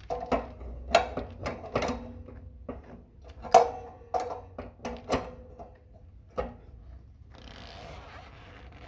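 Irregular metal clicks and knocks as a tool works the old temperature/pressure relief valve loose from the water heater tank, followed by a soft scraping hiss near the end.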